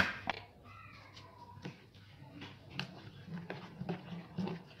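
A spoon knocking and scraping in a plastic bowl as gram-flour batter for pakoras is stirred, in irregular clicks, with a sharp knock at the very start. A brief animal call comes about a second in.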